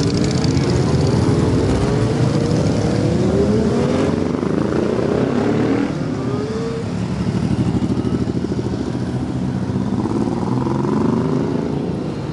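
A column of motorcycles riding past at low speed, many engines running at once, with repeated rising revs as bikes open the throttle and pull away. An engine with a rhythmic throb stands out in the middle.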